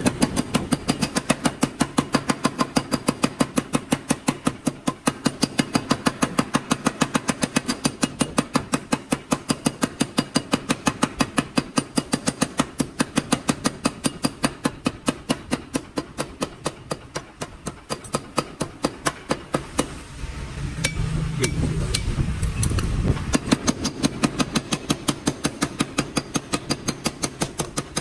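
Power hammer striking red-hot steel on its anvil die in a fast, even run of blows, several a second, drawing out a knife blade. About three quarters of the way through the blows thin out for a couple of seconds while the machine's low hum comes up, then the rapid hammering resumes.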